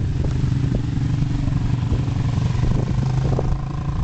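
Quad ATV engine running at a steady pitch, changing near the end, with a few light clicks over it.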